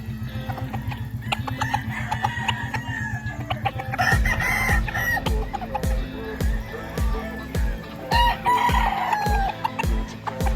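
Roosters crowing and chickens clucking over background music with a steady beat. A heavier kick drum comes in about four seconds in.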